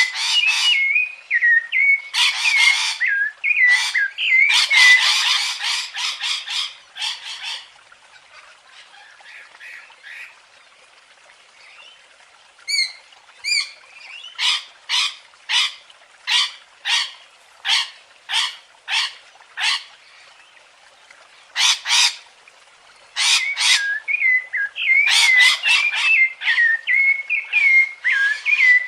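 Birds calling: whistled chirps mixed with harsh squawks, a quieter spell about a third of the way in, then a run of about eight evenly spaced harsh calls before the chirping and squawking pick up again near the end.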